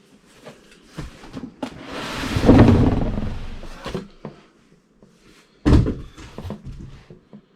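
An 8-litre beer keg and its cardboard packaging being handled during an unboxing. There are light knocks, then a long rustling scrape about two seconds in, then a heavy thunk near six seconds followed by smaller knocks.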